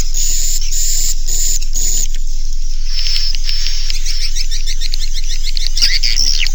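Swiftlet roosting-call lure track: high, drawn-out chirps in the first two seconds, then a fast run of short twittering chirps from about three seconds in, over a steady low electrical hum.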